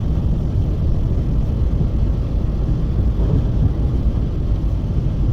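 Loud, steady low rumbling noise with no distinct tones or strikes.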